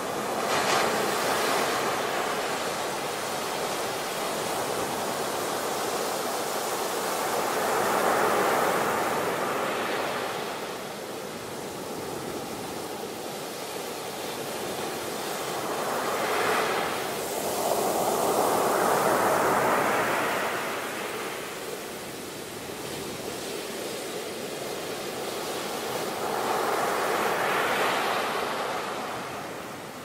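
Ocean waves breaking and washing up a beach: a steady rush of surf that swells and fades in four slow surges, about eight to ten seconds apart.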